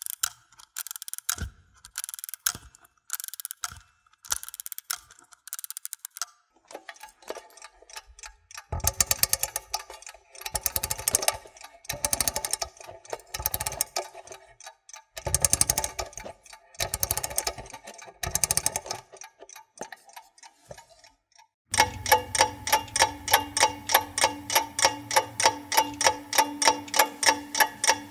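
Clock sound effects in three parts. First, short bursts of rapid mechanical ticking about once a second. Then longer bursts of fast clicking from about nine seconds in, and from about twenty-two seconds a louder, continuous quick ticking with a steady ringing tone under it.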